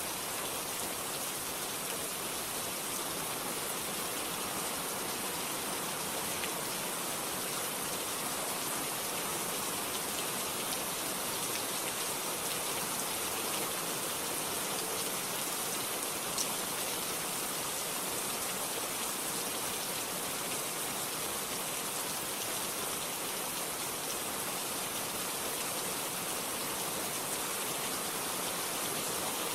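Steady rain falling, an even hiss of drops on a surface with faint individual drop ticks and no thunder.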